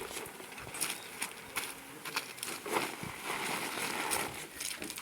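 Steel spades scraping and turning a wet concrete and cement mix by hand: irregular scrapes and knocks, with a longer gritty scrape in the middle.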